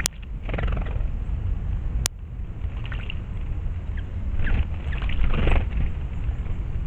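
Wind rumbling steadily on an outdoor microphone, with a few short rustling noises and two sharp clicks, one at the very start and one about two seconds in.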